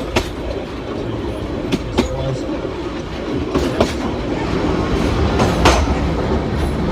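Passenger train carriage running along the line: a steady rumble with several sharp wheel clacks over rail joints, some in pairs. The rumble grows louder near the end as the train enters a tunnel.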